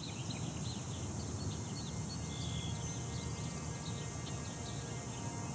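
Outdoor nature ambience: several birds chirping and trilling in quick, overlapping calls over a steady low background rumble.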